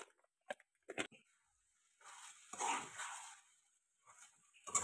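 A metal spoon tapping and scraping in an iron kadhai as a thick mushroom curry is stirred. There are two light taps within the first second, then a louder muffled sound about two and a half seconds in.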